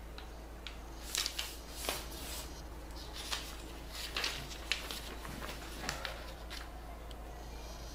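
A sheet of origami paper rustling and crinkling as it is folded and creased by hand, in short scratchy bursts with a few light taps, over a steady low hum.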